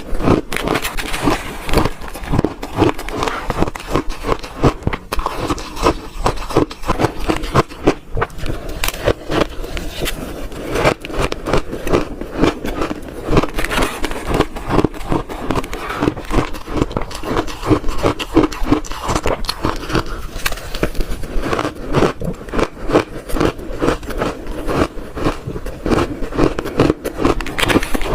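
Close-miked crunching of a person biting and chewing mouthfuls of frozen shaved ice: dense, rapid, irregular cracks of breaking ice with no real pauses.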